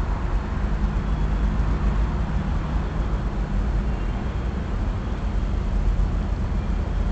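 Diesel switcher locomotives' engines running, a steady low rumble with a few held low tones.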